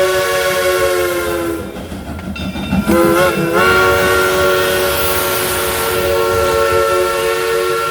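Steam locomotive whistle of Polson Logging Co. No. 70 blowing a long chord of several notes. About one and a half seconds in, its pitch sags and it fades. About three seconds in it is blown again, wavers upward briefly, then holds steady.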